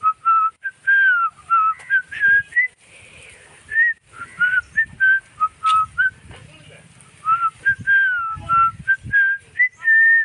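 A person whistling a tune close by: a quick string of short whistled notes, some held and some sliding up or down.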